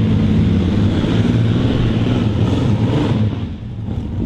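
Multi-engine heavy modified pulling tractor running loud at full throttle under load while pulling the sled, with a low, steady engine note. The engines ease off briefly a little over three seconds in, then come back up.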